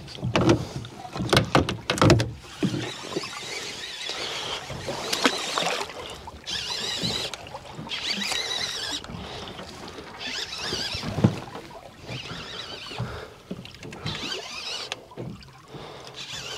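Fishing reel being wound in repeated short bursts of whirring while a hooked fish bends the rod over, a few knocks near the start, over the steady noise of the boat and sea.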